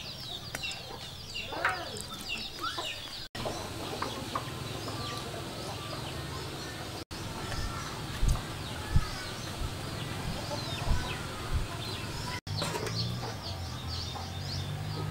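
Chickens clucking and small birds chirping, over a low steady hum, with a couple of dull thumps about eight and nine seconds in.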